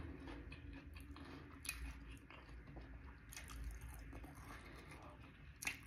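Faint chewing and biting on a sauced fried chicken wing, with a few short crunches.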